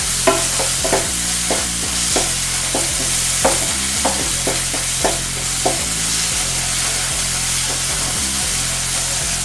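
Spatula stirring and scraping thick onion-tomato masala in a nonstick frying pan, with short scrapes and taps every half second or so over a steady sizzle of frying. The scrapes come less often after about six seconds. The spiced masala is being fried until the oil separates.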